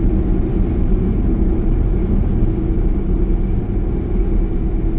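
Jeep Grand Cherokee (WK2) driving off, a steady engine and road drone with a held hum.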